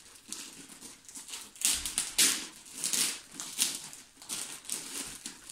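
Clear plastic film wrapped around a rolled diamond-painting canvas crinkling and rustling in a series of irregular bursts as it is handled and unwrapped.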